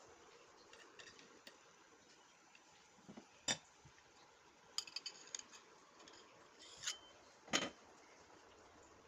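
Kitchen utensils and dishes clinking and knocking a few times, several of the hits with a short ringing tone, the loudest near the end.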